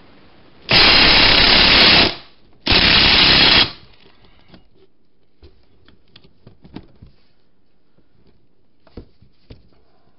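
Cordless impact wrench with a 46 mm socket hammering at the axle nut on a front wheel hub to break it loose, in two loud bursts of about a second and a half and about a second. Faint clicks and knocks of handling follow.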